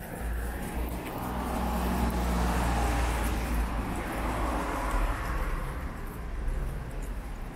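A road vehicle passing on the street alongside: its tyre and engine noise builds over the first couple of seconds, is loudest in the middle and fades away near the end, over a steady low rumble.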